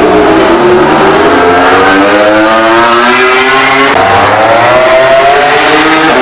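Ducati Desmosedici GP21 MotoGP bike's V4 engine accelerating hard, its pitch climbing, then dropping suddenly about four seconds in and climbing again.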